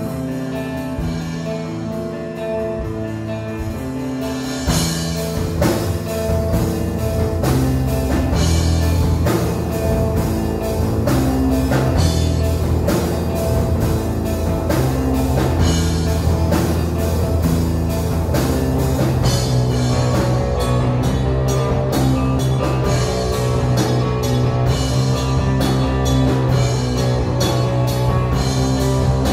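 Rock band playing: held notes at first, then the drum kit comes in about five seconds in and the full band plays on louder with a steady beat.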